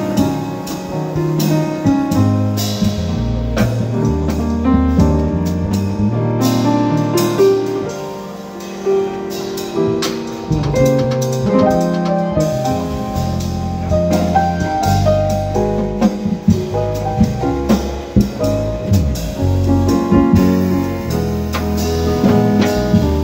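Live small-band jazz in a bossa nova style: acoustic piano playing chords and melody over sustained electric bass notes, with light drum strokes.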